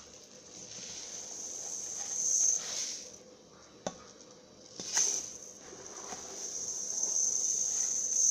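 Many small loose pieces poured from a cut-open toy into a large cup, making a hissing patter that swells twice, with one sharp click just before the second pour.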